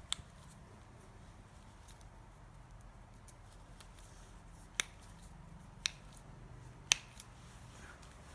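Three short, sharp clicks about a second apart, a few seconds in, the last the loudest, with a smaller click at the very start, over a faint low hum.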